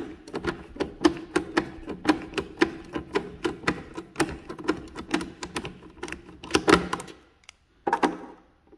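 Ratcheting hand screwdriver with a T10 Torx bit clicking in quick regular strokes, about four or five a second, as it backs out the small screws holding a truck side-mirror housing together. The clicking stops about seven seconds in, and a couple more clicks follow near the end.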